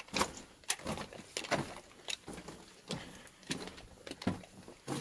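Footsteps crunching on loose broken rock and gravel on a mine drift floor, an uneven step roughly every half second to second.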